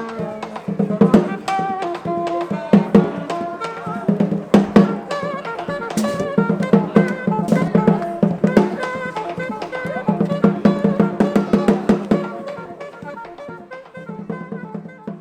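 Instrumental music with drums and dense percussive strikes over a stepping pitched melody and a pulsing low note, fading out near the end.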